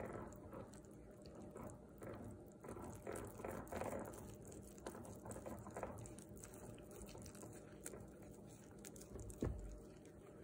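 Wire whisk stirring powdered sugar and milk into a glaze in a glass bowl: soft, uneven scraping with light clicks of the wires against the glass. A single thump, the loudest sound, comes near the end.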